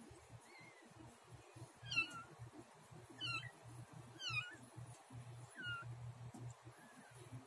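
Newborn kitten mewing: a string of about six short, high, squeaky mews, several falling in pitch, the loudest just past the middle.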